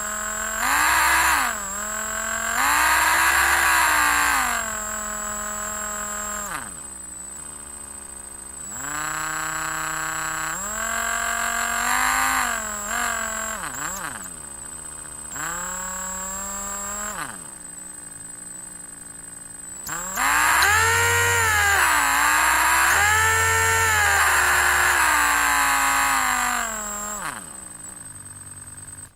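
Electric drill motor running in a series of runs, its pitched whine speeding up and slowing down again and again, with brief spin-downs between runs. The longest and loudest run comes in the last third, swelling twice before it winds down near the end.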